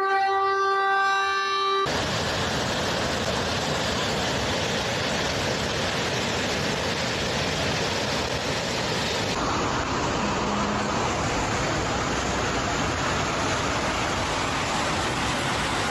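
A siren holding a steady pitch after winding up, cut off abruptly about two seconds in. It gives way to a loud, steady rushing noise that runs on through the rest.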